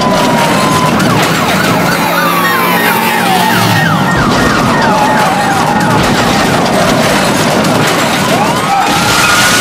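Police car sirens wailing in slow rising and falling sweeps, switching to a fast yelp for a couple of seconds about two seconds in, over a continuous noisy background.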